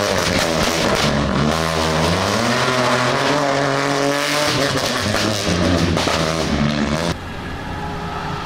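Rally car engine passing at speed, its engine note falling and then climbing again as it revs up. The sound cuts off suddenly about seven seconds in to a quieter, different background.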